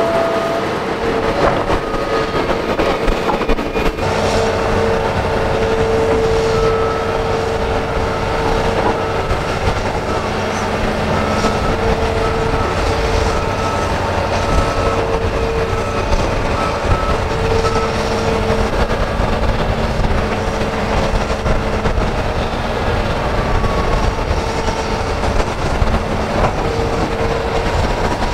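Hitachi Zaxis hydraulic excavators digging and loading soil: diesel engine running under load with a steady whine from the hydraulics that swells and fades as the arm works. The sound changes abruptly about four seconds in.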